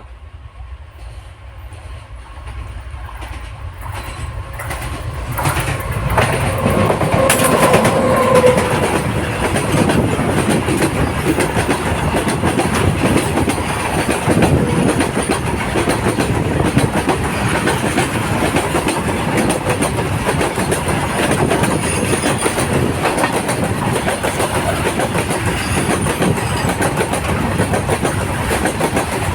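Train approaching, growing louder over the first six seconds, then passing at speed with a loud continuous rumble and rapid clatter of wheels over the rails.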